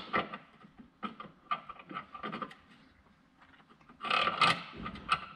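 Irregular scratching and scraping of hands and tools working at a car's metal horn-mounting bracket, with a louder, denser spell of scraping about four seconds in.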